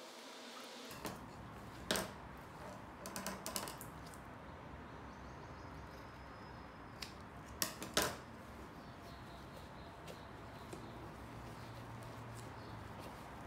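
Large shears snipping through drysuit rubber: sharp clicks, a few in the first four seconds and another group around eight seconds in.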